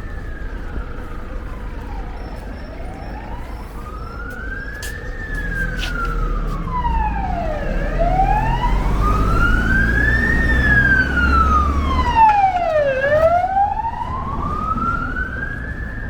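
A wailing siren, its pitch rising and falling slowly about every five seconds, with a vehicle's low engine rumble growing louder through the middle and fading after about twelve seconds.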